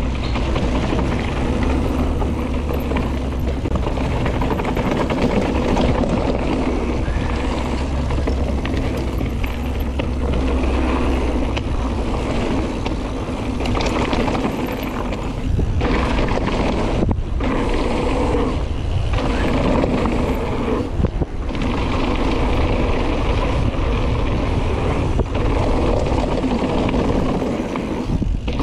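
Mountain bike riding fast down a dirt trail: steady tyre and trail rumble with the bike rattling and wind buffeting the camera microphone, broken by a few brief dips in the noise past the middle.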